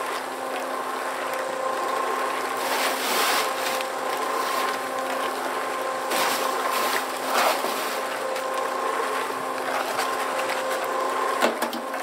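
Kushlan electric concrete mixer running with a steady hum as its drum turns, churning a wet batch of mortar mix and gravel, with the rattle of the stones and a few louder scrapes and clunks.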